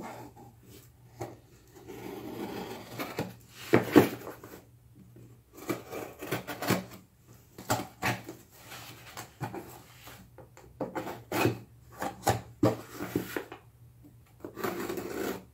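A knife blade slitting packing tape and scraping along a cardboard box, with rubbing, scraping and a run of knocks and clicks as the box and its flaps are handled; the sharpest knock comes about four seconds in.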